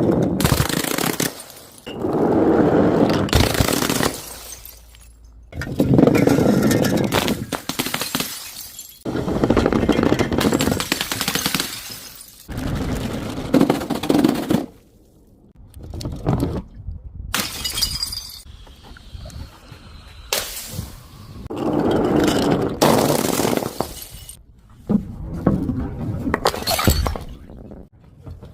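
A run of crushing and breaking sounds, about ten crashes of one to three seconds each with short gaps between them: glass bottles and other objects being broken and shattered.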